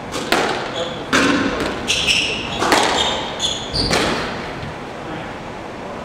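A squash rally: several sharp, echoing smacks of the ball off rackets and the court walls, mixed with high squeaks of shoes on the hardwood floor, over about four seconds before the court goes quieter.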